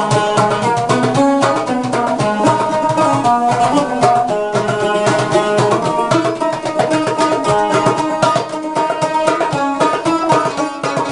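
Background music: a quick plucked-string tune over light percussion, with many rapid notes.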